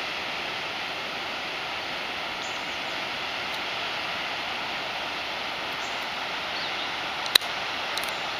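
Steady rush of water pouring from an outlet at the foot of the Conemaugh Dam's concrete spillway into the river below. A sharp click about seven seconds in, and a fainter one just after, stand out over the rush.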